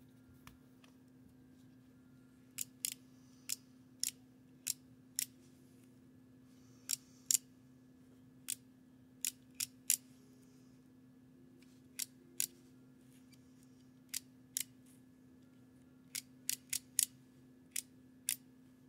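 Argus AA camera's shutter mechanism being worked over and over: a run of about two dozen sharp mechanical clicks, often in pairs or threes, the pattern of the shutter being cocked and fired to test it.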